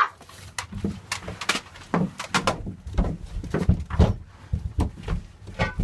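A scuffle: irregular thumps and knocks of bodies and feet hitting the floor and furniture, several a second.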